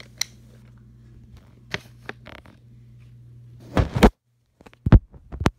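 Handling noise from toy trains and a camera being moved: scattered light clicks, then a cluster of loud knocks about four seconds in and two sharp knocks near the end, over a low steady hum. The sound cuts out completely for a moment just after the loud knocks.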